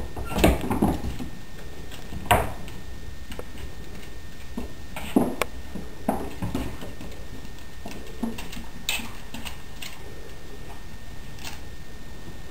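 A whippet and an ocicat wrestling on a hardwood floor: irregular scuffles, knocks and clicks of paws and bodies, heaviest in the first second and again at two sharper knocks later on.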